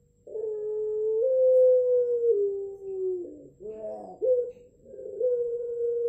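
Caged puter pelung (domestic Barbary dove) giving long drawn-out coos. One coo lasts about three seconds and steps down in pitch toward its end, a short rougher note follows, and then a second long coo begins.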